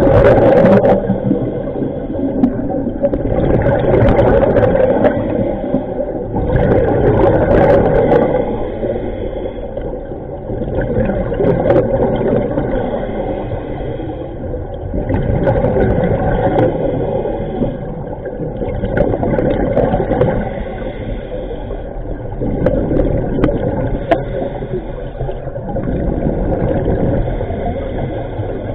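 A scuba diver breathing through a regulator underwater, heard through the camera housing: a hissing inhale and bubbling exhale swelling and fading about every four seconds.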